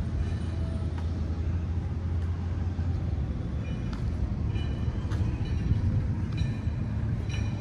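Detroit DD15 inline-six diesel of a 2019 Western Star 5700XE idling, a steady low drone.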